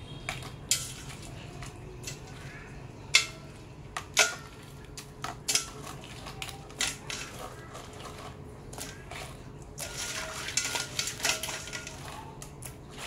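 Metal utensils and cookware knocking and scraping: scattered clinks, some ringing briefly, then a busier run of clatter near the end.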